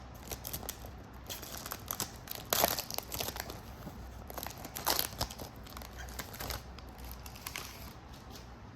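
Plastic trading-card pack wrapper crinkling and tearing as it is ripped open by hand, in irregular crackles with a few sharper louder rips.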